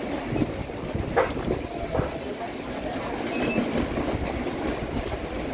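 Nor'wester storm wind gusting hard and buffeting the microphone in a continuous low rumble, with a couple of sharp knocks about one and two seconds in.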